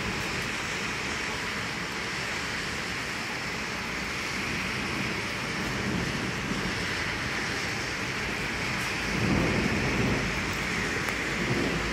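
Steady rain falling in a thunderstorm, with a low rumble of thunder swelling about nine seconds in and again briefly near the end.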